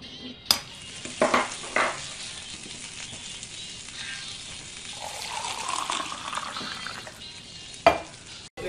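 Eggs frying in a hot pan, a steady sizzle, with a few sharp knocks and clatters early on as eggs drop onto the ramp and pan. About five seconds in, liquid is poured into a mug, its pitch rising as the mug fills, and a sharp knock comes near the end.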